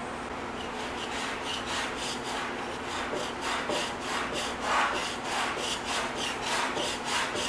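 Scraper rasping back and forth over a wooden tabletop, in repeated strokes about three a second. It is lifting finish that Citristrip stripper has softened, baring the wood underneath.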